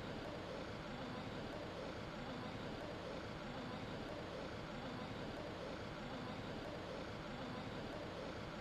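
Faint, steady background noise with no distinct events.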